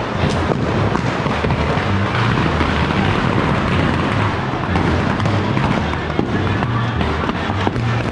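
Continuous dense crackle of firecrackers and fireworks going off, many sharp pops overlapping, with music and a steady bass beat playing underneath.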